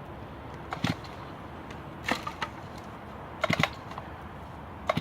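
A few sharp knocks and clunks, four in all, the third a quick double knock, over a steady outdoor background.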